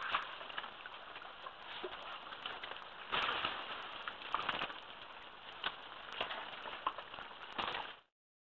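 Wet mud squelching and sloshing as forest elephants shift and step in a mud wallow, with a run of small wet clicks and crackles and a few louder splashy surges. The sound cuts out briefly near the end.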